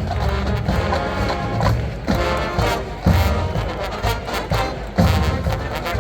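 Marching band brass and drums playing one of the U.S. armed forces service songs in a salute medley.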